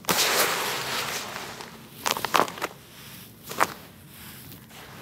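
Hands scooping and crumbling gritty red dirt: a loud gritty rustle of falling grains right at the start that fades away, then a few sharp crunches about two seconds in and another a second later.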